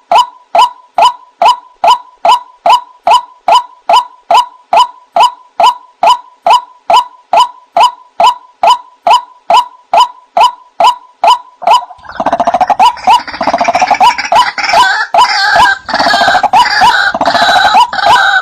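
White-breasted waterhen (ruak-ruak) lure-call recording: one short call note repeated very evenly, about three times a second. About twelve seconds in, a dense, harsher babble of waterhen calls joins over the repeating note.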